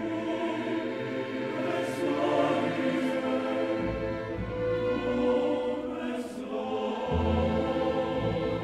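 Background music: a choir with orchestra holding slow, sustained chords.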